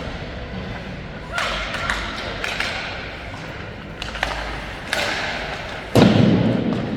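Knocks and thuds of an ice hockey game, with sticks and puck striking and hitting the boards, echoing in the rink. There are several sharp knocks, and the loudest, a deep thud, comes about six seconds in.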